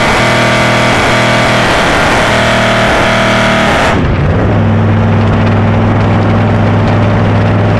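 Chevrolet El Camino's small-block V8 revving hard while the rear tyre spins in a burnout. About four seconds in, the revs drop and the engine settles into a steady low drone as the car drives on.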